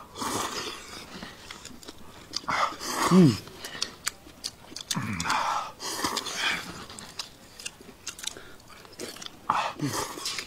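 People slurping and chewing hot pot noodles with chopsticks, in irregular wet bursts, with a few short voiced sounds falling in pitch about three, five and ten seconds in.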